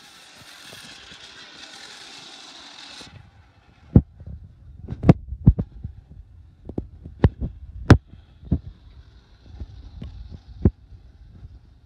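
A rustling hiss for about three seconds, then a string of irregular, dull thumps and knocks over a low rumble.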